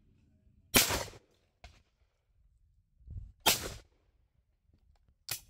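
Two shotgun shots, about two and three-quarter seconds apart, each a sharp crack with a short fading tail, then a shorter sharp crack near the end.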